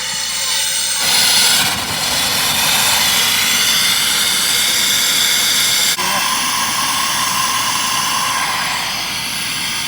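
Loud, steady rush of air forced through plumbing to clear water from the lines for winter. It swells briefly about a second in and changes pitch abruptly near the middle.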